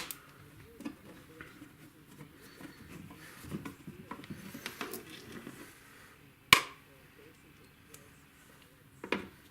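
Light handling noises of small parts and tools, scattered taps and rubs, with one sharp click about six and a half seconds in and another near the end.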